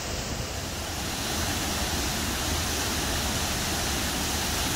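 Water spilling over a concrete river weir into the pool below, a steady, even rushing of falling water.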